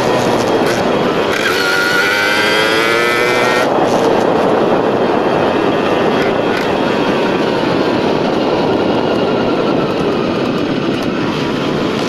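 Tomos moped's two-stroke engine, with an Airsal cylinder kit and a new exhaust, running loud and steady. Its pitch slowly rises and wavers up and down.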